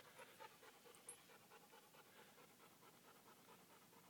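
Faint, rapid panting of a dog, about four breaths a second.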